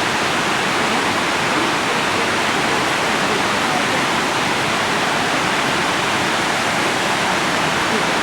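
Steady, even rushing of a tall waterfall, the 78-metre falls at Plitvice Lakes, pouring without a break.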